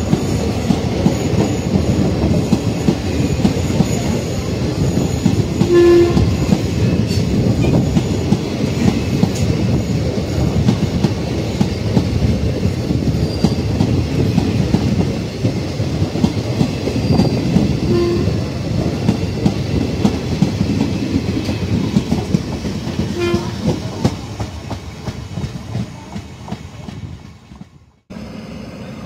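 Passenger train coaches rolling past on the track, the wheels clattering over the rail joints in a steady stream of clicks under a low rumble. Three short pitched tones break in along the way, and the clatter fades as the train draws away near the end.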